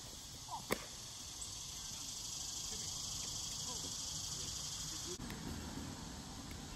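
A steady, high-pitched insect drone from the trees, swelling in the middle and dropping off suddenly about five seconds in. About a second in comes one sharp slap, a flying disc being caught.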